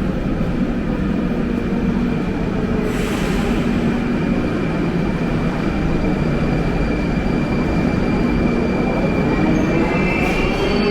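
A Moscow Metro train running loud and steady in the station, with a brief hiss about three seconds in. Near the end its motor whine starts rising in pitch as it picks up speed.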